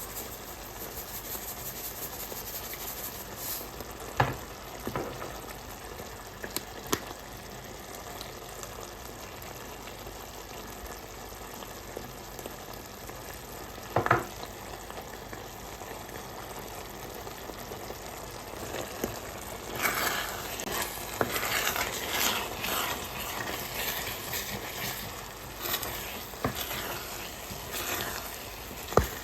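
Food sizzling in a pot, with a utensil knocking against it a few times. About two-thirds of the way in, busy scraping and stirring sets in.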